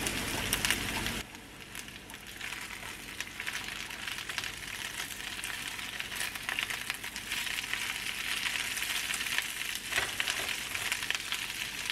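Fresh spinach and sun-dried tomatoes sizzling and crackling in hot avocado oil in a skillet. The sizzle drops sharply about a second in, then slowly builds again.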